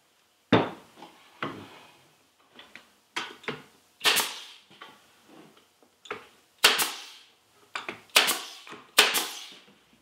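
Nail gun firing about ten shots at uneven intervals, each a sharp crack with a short tail, driving nails into wooden boards.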